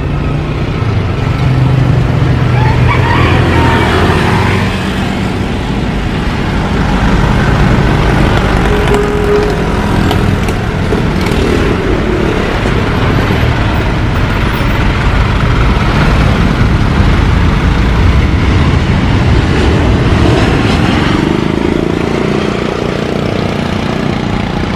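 Rolls-Royce Trent XWB turbofans of an Airbus A350 landing: a loud, steady jet roar through the final approach, touchdown and rollout.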